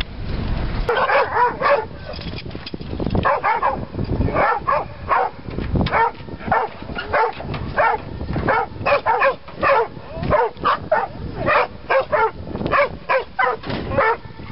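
Steady cabin rumble of a moving van for about the first second, then dogs barking and yipping over and over in short sharp barks, one to three a second.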